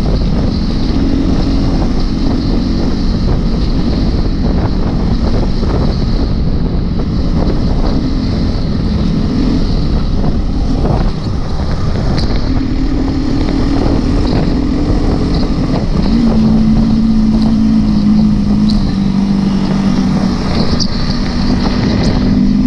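Trail motorbike engine running under way along a rough track, its pitch shifting with the throttle and stepping up about two-thirds of the way through, with wind buffeting the microphone.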